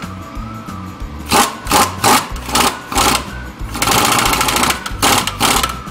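Hand ratchet wrench clicking as it turns a nut on the snow plow pump: several short runs of ratcheting, then a faster, longer run about four seconds in and two more short runs near the end.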